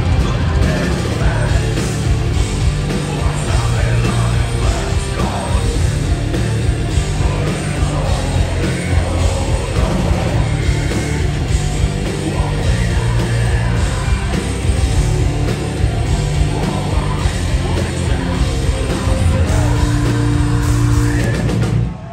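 Heavy metal band playing live: distorted electric guitars, drums and shouted vocals, loud and dense throughout, stopping abruptly right at the end as the song finishes.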